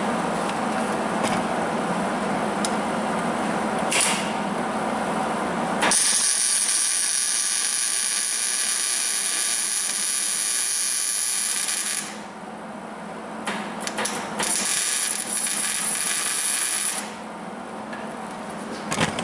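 Small 110-volt MIG welder arc running in two bursts, a long one of about six seconds and then a shorter one of about two and a half seconds, as a nut is welded onto a snapped exhaust manifold bolt in an aluminum cylinder head. Before the first burst there is a steadier, lower noise.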